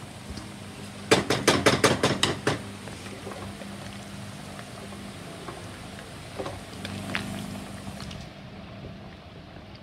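Metal bowl knocked against the rim of an aluminium stockpot as vegetables are tipped into hot broth: a quick clatter of about eight sharp knocks over a second and a half. Then a wooden spoon stirs the pot with a couple of softer knocks, over a steady low hum.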